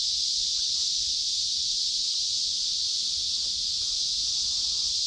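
Steady, high-pitched drone of insects from the trees, an even hiss with no breaks.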